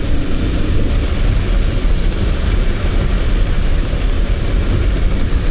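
Heavy rain and vehicles driving through a flooded road: a steady hiss over a deep, continuous rumble.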